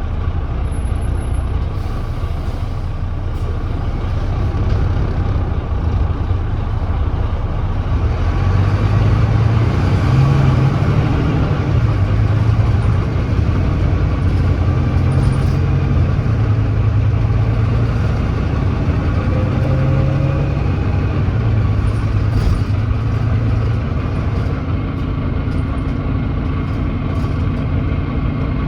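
Volvo D9B 9.3-litre diesel engine of a Volvo B9TL double-decker bus running under way, with an exhaust leak. The engine grows louder about a quarter of the way in, then holds a steady note.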